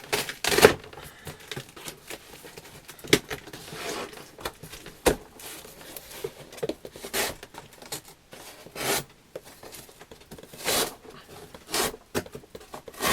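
Cardboard shipping box being torn open by hand, in a series of short ripping strokes a second or two apart with rustling between them.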